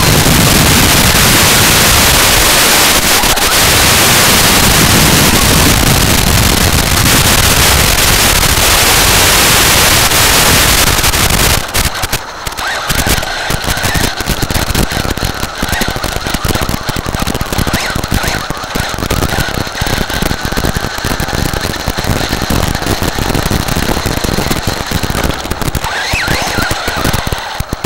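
Loud steady hiss of static on the analog FPV video link's audio, recorded by the goggles' DVR. About twelve seconds in it changes to a choppier, crackling noise with a faint steady whine.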